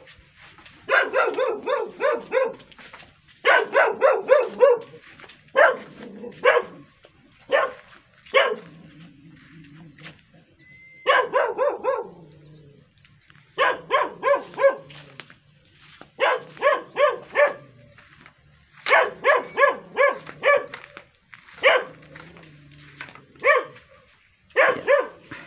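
A dog barking in quick runs of several barks each, with short pauses between the runs.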